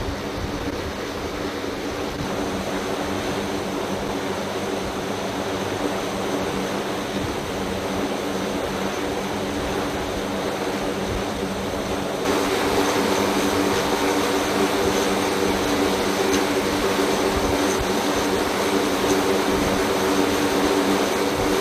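MC-130J Commando II turboprop engines running steadily, heard from the cargo hold: a continuous drone with several steady tones over a rushing hiss. It gets louder about twelve seconds in.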